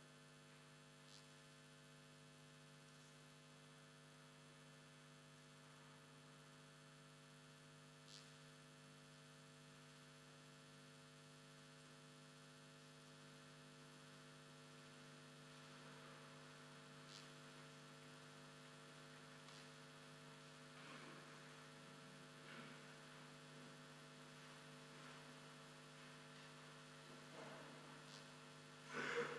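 Near silence with a steady electrical mains hum and a few faint clicks; a short louder sound comes near the end.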